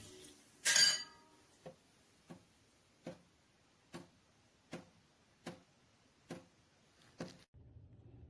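A single ringing metallic clink, then a series of eight light, evenly spaced ticks about three-quarters of a second apart.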